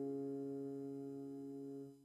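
Background music: a sustained keyboard chord slowly fading, cut off near the end.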